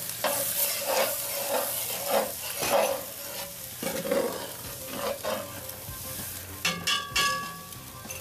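A metal spatula scraping and stirring thickening roux-and-fish-stock gravy across the bottom of a pot, in repeated strokes over a steady bubbling sizzle. A couple of ringing metal clinks come near the end.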